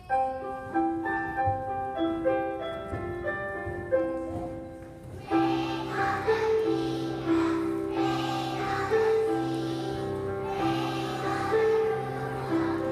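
A large choir of young children singing a song with instrumental accompaniment. A short instrumental introduction plays a melody note by note first, and the children's voices come in about five seconds in.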